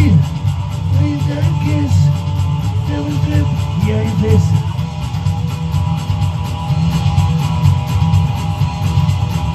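Electric guitar strummed in a steady rhythm, with a man singing a few held, wavering notes over it for about the first four and a half seconds; after that the guitar plays on alone.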